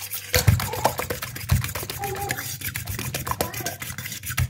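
Beaten eggs being whisked briskly with a metal utensil in a steel bowl: rapid clicking and scraping against the bowl, with a couple of dull knocks in the first two seconds.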